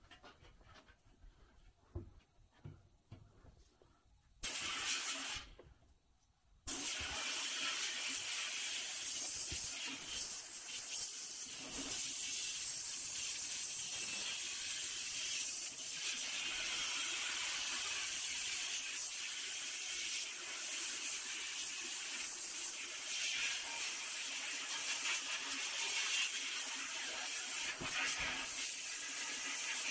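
Sandblast cabinet gun blasting rust off a pressed-steel toy airplane part: a short burst about four seconds in, then steady loud hissing of air and abrasive from about seven seconds on. A few faint knocks come before the blasting starts.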